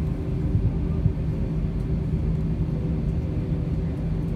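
Steady low drone of an airliner's cabin, engine and air-conditioning noise, with a few steady hum tones underneath.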